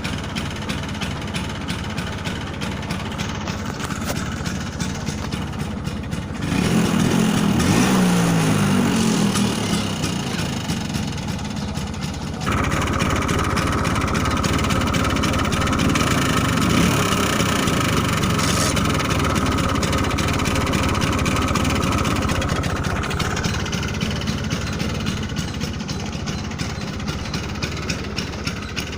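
Bajaj Chetak scooter's two-stroke engine running just after being started following about ten days unused. It idles, is revved up and down about six seconds in, then is held at a higher speed from about twelve seconds until it eases back toward idle near the end.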